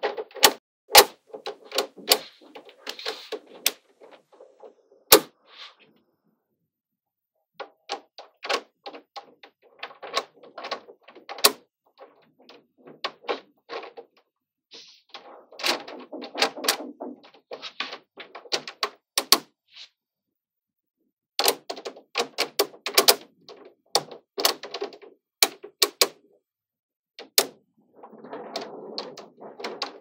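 Small magnetic balls clicking and snapping together as they are handled and pieced into a build, in irregular runs of sharp clicks with a light rattle between them. There are two pauses of a second or two, about six and twenty seconds in.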